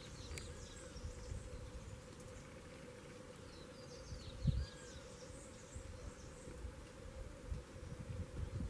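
Faint outdoor ambience: a steady insect buzz, with a few short high chirps of small birds near the start and around the middle, and a dull low bump about four and a half seconds in.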